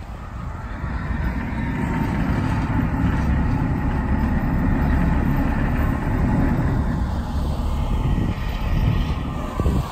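Icebreaking boat's engine running under load, a steady low rumble that builds over the first two seconds and then holds.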